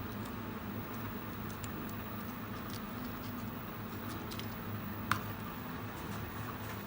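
Faint handling of adhesive grip tape on a polymer pistol frame: small scattered clicks and taps over a steady low hum, with one sharper click about five seconds in.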